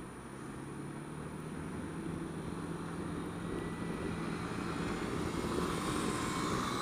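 Honda Dio scooter's single-cylinder engine running while riding in traffic, a steady low hum under wind and road noise. The noise swells and grows louder over the last couple of seconds.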